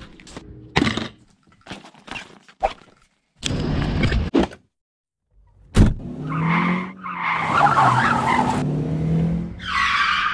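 A few short, clipped sounds, then a car driving on a wet road, its engine note rising and falling through several abrupt cuts.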